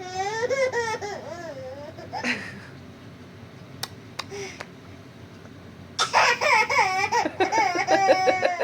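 A baby girl laughing at her mother's hiccups, in two bouts: a short warbling laugh at the start, then a longer run of rapid, pulsed belly laughs from about six seconds in. A woman's single hiccup sounds about two seconds in, between them.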